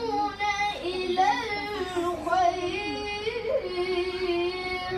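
A boy chanting Quran recitation in the melodic tarannum style: long held notes with ornamented, wavering pitch turns, broken by short pauses for breath.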